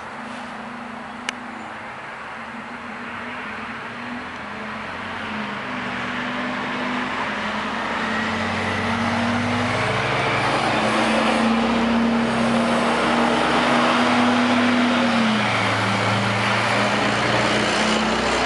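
New Flyer C40LF CNG transit bus with a Detroit Diesel Series 50G natural-gas engine driving past. It grows louder over the first half and stays loud as it goes by, its engine note shifting in pitch a few times. A single sharp click about a second in.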